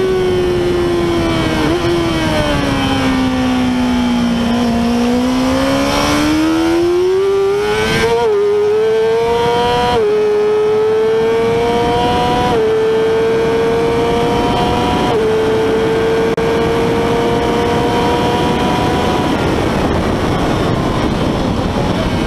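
Yamaha R6's 600 cc inline-four engine heard from onboard under steady wind noise. The engine note falls as the bike slows through a corner, then climbs as it accelerates out, with four upshifts in a row, each a short dip in pitch, before holding high down the straight.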